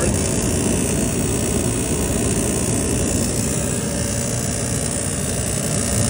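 Magic-Pak furnace's inducer motor and fan running steadily, spinning freely now that debris has been cleared from the blades.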